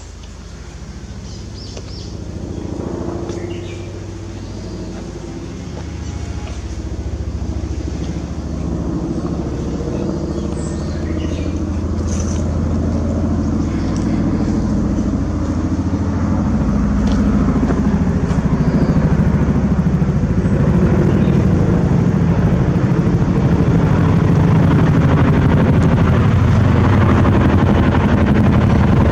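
A low engine drone growing steadily louder throughout, as of something approaching. A few faint, short bird calls show in the first half.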